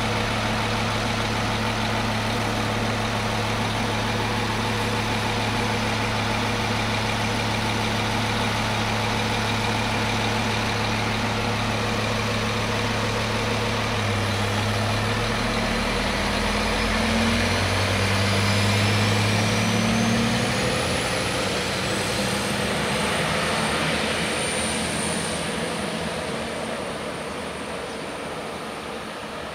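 Arriva LINT 41 diesel railcar idling steadily at the platform. About halfway through its engine revs up with a rising whine as it pulls away, and the sound fades as it departs.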